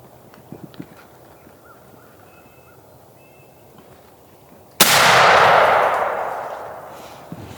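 A single shotgun shot about five seconds in, sudden and very loud, echoing away over about two seconds.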